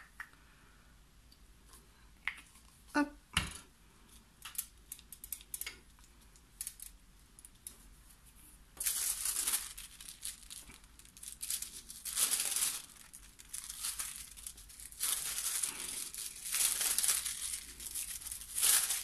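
A crumpled sheet of gold transfer foil crinkling and rustling in repeated bursts as it is pressed onto glue and peeled away, from about halfway in. Before that there are only a few light taps and clicks.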